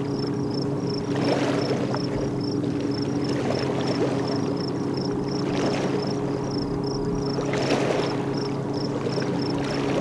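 Oars of an inflatable pontoon boat dipping and pulling through the water, with a swish of water about every two seconds. Under it runs a steady low hum and a high chirping repeated about four times a second.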